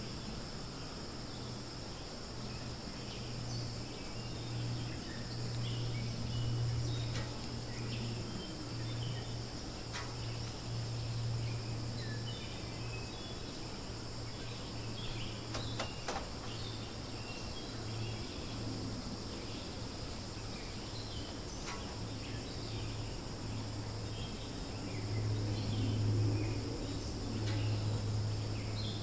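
Outdoor ambience: a steady, unbroken high drone of insects, with scattered short bird chirps and a steady low hum underneath that grows louder near the end.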